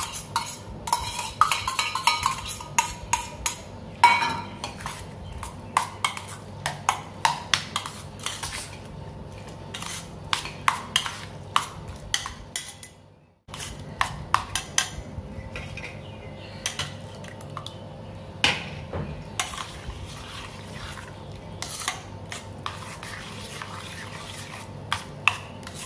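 A metal spoon stirring curd and vermicelli in a stainless steel bowl, making quick irregular clinks and scrapes against the steel. The sound breaks off for a moment about halfway.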